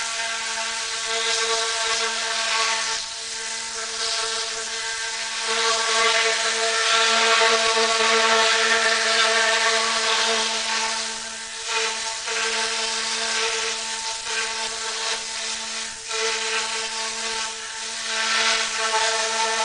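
Tornador Black Z020 pneumatic cleaning gun running on compressed air: a steady whirring hum with a strong air hiss, swelling and easing every few seconds as the trigger is worked.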